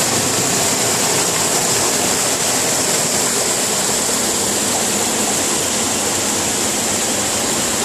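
Waterfall: water falling steadily, a loud, even rush that does not change.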